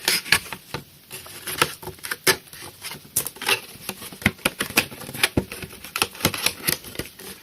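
Irregular clicks, taps and rustles of a cardboard collector's box being handled and opened.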